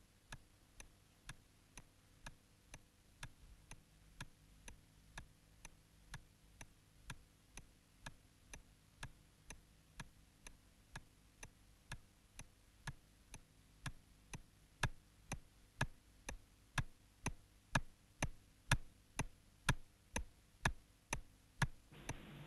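Clock ticking steadily, about two ticks a second, growing louder over the last third.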